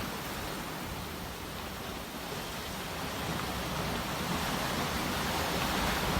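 Sea waves washing in: a steady rushing hiss of surf that dips slightly and then swells slowly.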